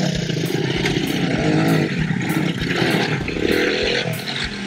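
Off-road vehicle engines running and revving, their pitch rising and falling several times.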